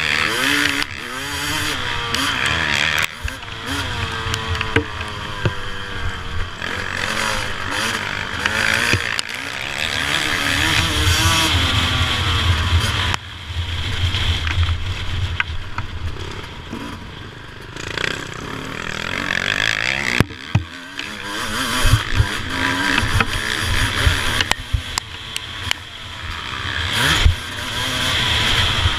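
Suzuki RM250 two-stroke motocross engine, heard from a camera mounted on the bike, revving up and down through the gears with a rising and falling pitch. The throttle shuts off briefly near the middle and again about two-thirds in.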